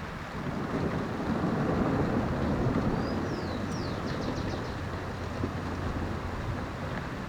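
A low outdoor rumble swells for a couple of seconds and eases off again. A bird gives a brief call of quick, high, descending chirps about three and a half seconds in.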